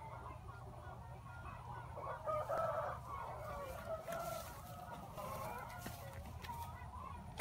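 Chickens clucking, a string of short calls, with one louder, longer call about two and a half seconds in.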